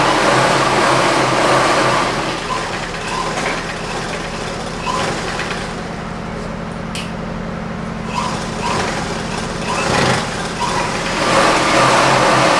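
Electric motor-driven sewing machine stitching fabric, its motor humming steadily under the running needle. The stitching is fast and loud in the first couple of seconds and again near the end, slower in between with a few short clicks.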